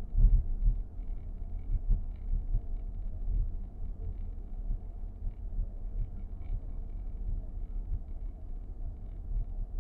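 Low, uneven rumble inside the cabin of a 2023 Nissan X-Trail e-POWER, with faint, scattered ticks: the abnormal dashboard noise being recorded.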